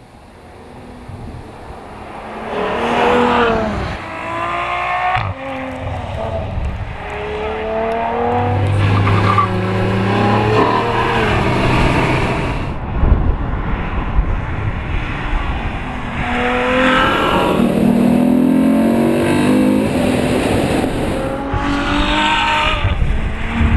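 Ferrari F12berlinetta's 6.3-litre V12 accelerating hard several times, its pitch climbing and dropping back at each gear change, then easing off. It starts quiet, builds over the first few seconds and is loudest in the second half.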